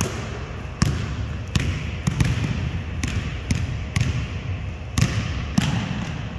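Basketball dribbled on a hardwood gym floor, a sharp bounce about every half second to second, unevenly spaced as the player drives toward the basket, in a large gymnasium.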